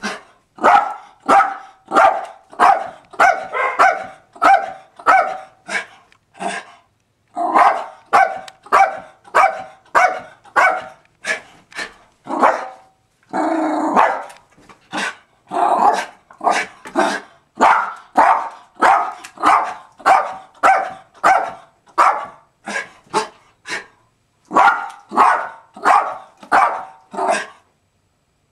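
Jack Russell terrier barking rapidly at a window, about two barks a second in long runs with a couple of short pauses.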